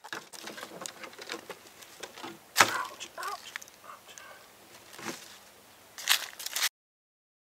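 Packing up fishing gear at a plastic cooler: rustling and clattering, a loud sharp snap about two and a half seconds in followed by a few short squeaks, then footsteps crunching on dry leaves. The sound cuts off abruptly near the end.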